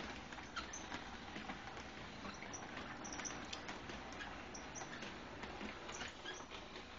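Model railway train, a small diesel locomotive hauling empty wagons, running along the track: a steady low hiss scattered with many light, irregular clicks.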